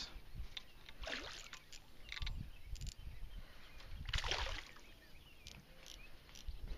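A hooked largemouth-type bass splashing at the water surface as it is fought in on rod and line. There are a few short splashes, the loudest about four seconds in.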